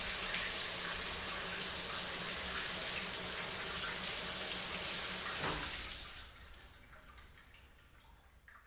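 Shower water spraying steadily in a dense hiss, then falling away sharply about six seconds in, leaving only faint sounds.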